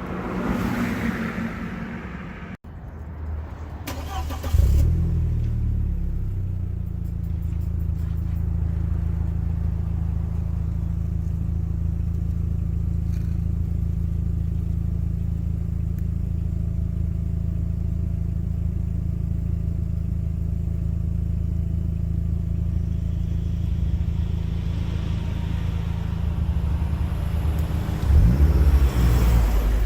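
B5 Audi A4 engine breathing through a freshly fitted APR aftermarket exhaust: it starts about four seconds in with a brief flare, then idles steadily. Near the end it is revved once, briefly, and settles back.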